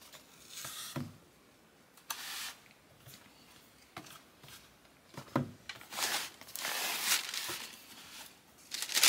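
Cardboard shoebox lid being handled and set down, with a few light knocks. From about six seconds in, tissue paper rustles and crinkles, loudest at the very end.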